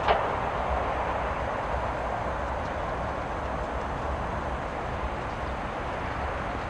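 Steady rushing outdoor ambience from the installation's soundtrack, fading slowly, with one sharp click right at the start.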